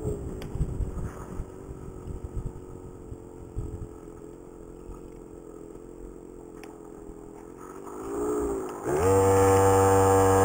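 Small 49cc two-stroke engine on a scooter running steadily at around 3000 rpm, with wind rumble on the microphone in the first few seconds. About eight seconds in, the pitch rises and falls briefly. Then the wind drops away and the engine's steady hum comes through much louder.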